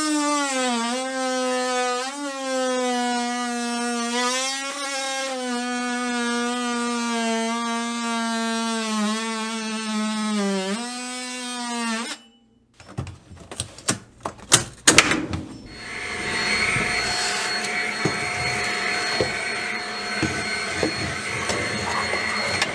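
Cordless oscillating multi-tool cutting through quarter-round baseboard molding: a steady high buzzing whine whose pitch dips whenever the blade bites under load, running for about twelve seconds before it stops. A few scattered knocks follow. Then a Shark stick vacuum runs steadily, sucking up the sawdust.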